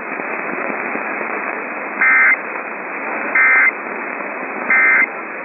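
Three short Emergency Alert System digital data bursts, the end-of-message code that closes a relayed alert, each about a third of a second long and about a second and a half apart. They play over a steady hiss of AM radio static.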